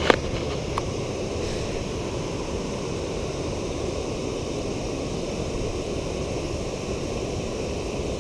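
Steady rushing of water spilling over a low weir, with a couple of sharp clicks in the first second.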